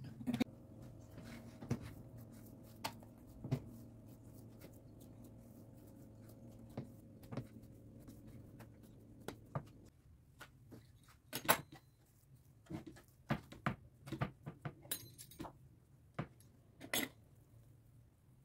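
Quiet kitchen handling noises: scattered small clicks and knocks, more frequent in the second half, the sharpest about two-thirds through and near the end. A faint low hum runs under the first half.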